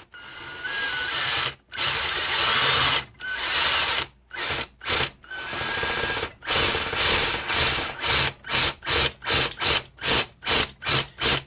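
A power drill bores a hole through a hubcap. It runs in several stretches of a second or so, then is pulsed in short bursts, about two or three a second, near the end.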